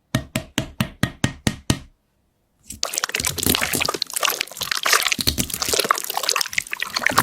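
Eight quick, evenly spaced sharp taps, then after a short pause a dense wet crackling and squelching of cold slime being squished and played with.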